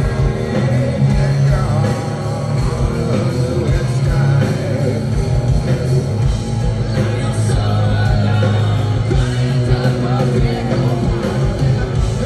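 Live rock band playing electric guitars, bass and drums with a singer, loud and steady, heard from within the concert crowd.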